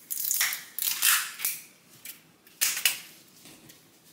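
Kitchen handling noise: three short scraping, crinkling bursts, two in the first second and a half and one shortly before three seconds in with a sharp click in it, as ingredients and utensils are handled while measuring out sauce.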